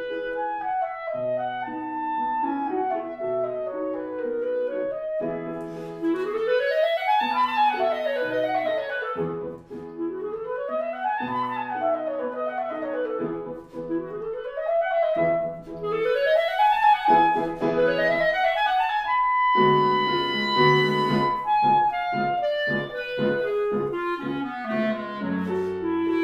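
Clarinet and piano duet: the clarinet plays fast runs sweeping up and down several times over piano accompaniment, then holds a long high note about two-thirds of the way through before moving on.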